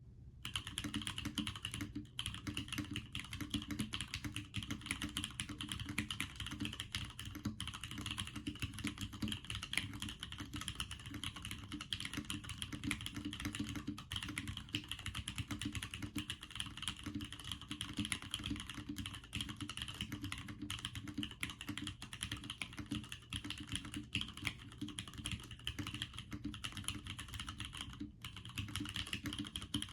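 Steady, continuous typing on a Bakeneko60 mechanical keyboard in a PCBSnap mount, fitted with Cherry Clear Top New Nixie switches, DCX keycaps and an FR4 plate: a dense stream of keystrokes with only brief breaks.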